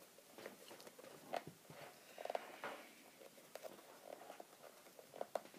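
Faint handling clicks and knocks of a Matrix electric airsoft rifle being turned over and worked by hand, with a few slightly louder taps.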